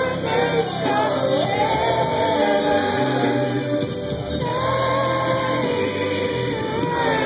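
Gospel music: a lead voice sings long, held, sliding notes over a steady instrumental backing.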